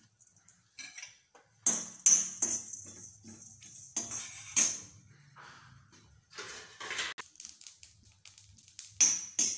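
Steel spoon scraping and clinking against an iron kadai as whole spices are stirred during dry-roasting, in irregular metallic scrapes with the seeds rattling in the pan.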